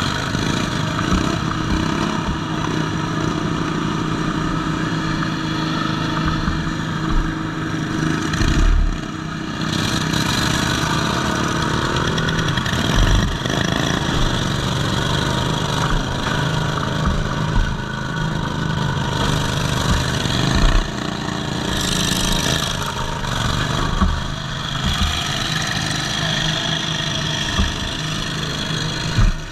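Racing lawn mower's twin-cylinder engine running hard through open upright exhaust stacks, its speed rising and falling as it is throttled. Sharp clunks from the chassis hitting bumps come several times.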